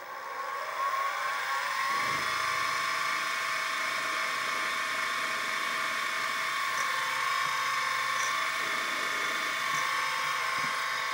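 Sieg SX2P mini mill's spindle motor spinning up with a rising whine over about two seconds, then running at a steady whine while a centre drill spots a hole in a small steel eccentric strap.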